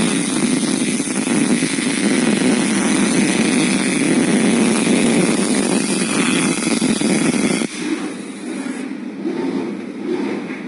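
Automatic CNC arc welder welding the seam of a sheet-metal water tray: a steady, dense arc noise that cuts off about three-quarters of the way through as the weld ends, leaving a quieter noise.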